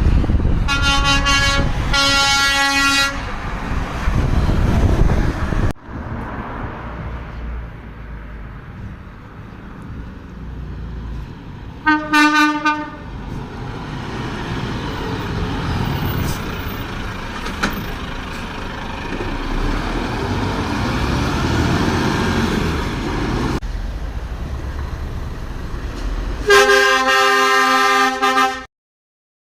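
Passing trucks sounding their horns: two blasts in the first few seconds, a short blast about twelve seconds in, and a longer chord-like horn blast near the end. Truck engines and road traffic rumble between the blasts.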